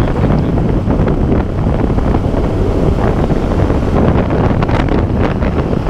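Loud, steady wind rush on the microphone of a Yamaha FZ 150 cc motorcycle riding at highway speed, with motorcycle and traffic noise beneath it.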